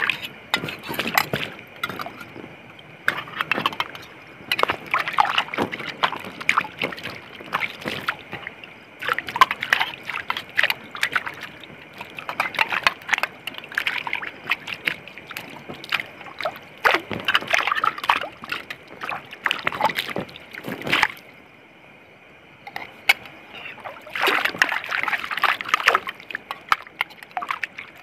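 Water sloshing and splashing in irregular bursts as plates are washed by hand in a reservoir, with a short lull about three quarters of the way through.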